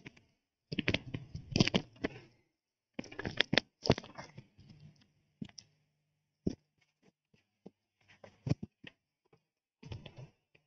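Handling noise close to a microphone: irregular rustling with scattered sharp clicks and knocks, busiest in the first four seconds, then thinning to single clicks.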